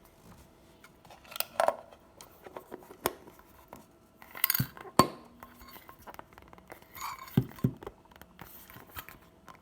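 Handling of a plastic Poké Ball toy and its metal coin: a scattering of sharp plastic clicks and small metallic clinks, several seconds apart.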